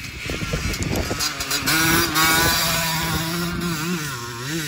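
Small two-stroke dirt bike engine running under way, settling into a steady buzzing note that rises and falls a few times near the end as the throttle is worked.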